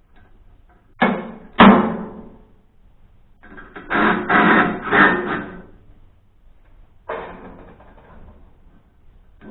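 Metal clanks and knocks that ring briefly, as steel parts and tools are handled on a wood chipper: two sharp strikes about a second in, a cluster of several a few seconds later, and one more near the end.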